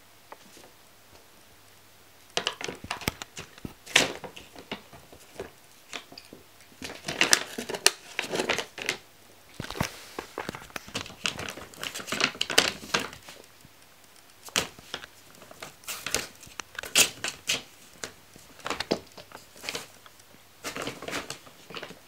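Brown paper shopping bag crinkling and rustling in irregular bursts as a kitten moves and paws about inside it, starting about two seconds in.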